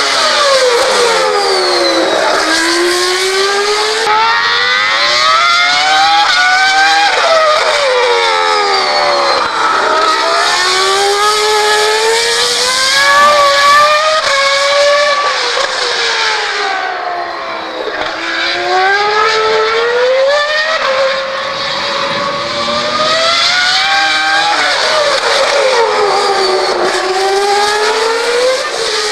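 Formula 1 car's engine at racing speed, its pitch climbing as it accelerates and falling away as it slows, over and over.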